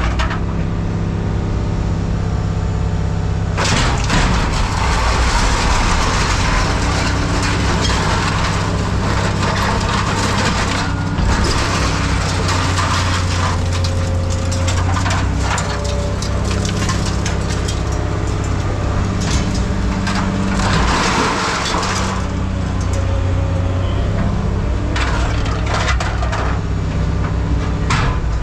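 Diesel engine of a tracked scrap-handling machine running steadily, with scrap metal scraping, crunching and clanking as pieces are grabbed and moved.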